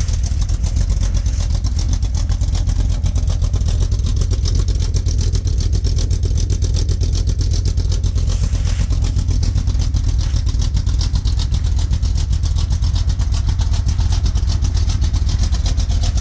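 Ford 460 big-block V8 in a 1978 Ford F-150, fitted with a custom-grind Comp cam and L&L headers, idling steadily after a cold start. It has a deep exhaust note with a fast, even pulse.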